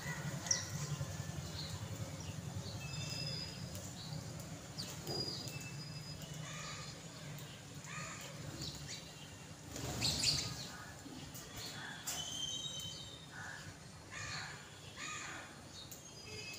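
House sparrows chirping in short, scattered calls from a feeding flock. A brief louder rush about ten seconds in, and the flock thins out by the end.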